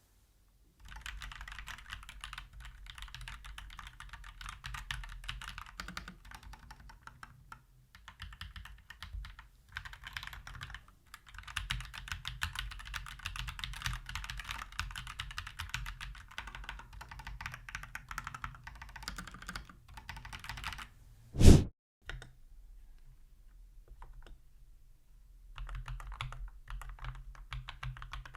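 Typing sound test on a MonsGeek MG108B mechanical keyboard with lubed Akko Cream Yellow V3 Pro linear switches: fast, continuous keystrokes in long runs with short pauses. About 21 seconds in there is one brief sound much louder than the typing.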